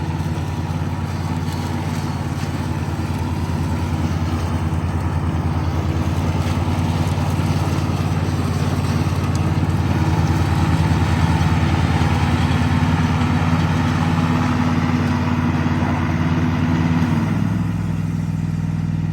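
John Deere riding lawn mower's engine running steadily under load while it cuts pasture grass. Near the end its note shifts and eases slightly.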